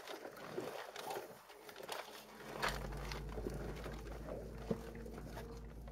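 Sandwich paper wrappers rustling and small clicks of people eating. A low steady hum comes in a little under halfway through.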